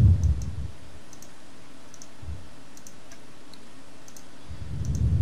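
Faint, scattered clicks of a computer mouse over a steady hiss, with a low muffled bump at the start and again near the end.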